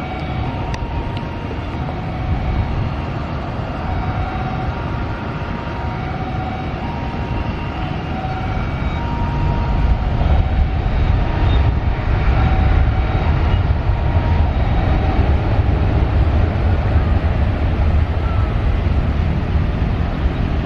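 Low rumble of a jet airliner's engines mixed with wind buffeting the microphone, growing louder about halfway through, with faint steady whining tones coming and going.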